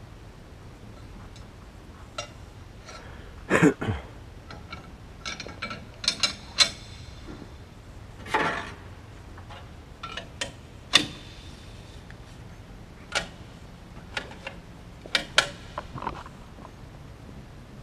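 Irregular metallic clinks, clicks and knocks of hand tools and parts being handled at the opened turbine end of a Pratt & Whitney PW545A turbofan during hot section disassembly, a few of them louder and ringing briefly, over steady hangar background noise.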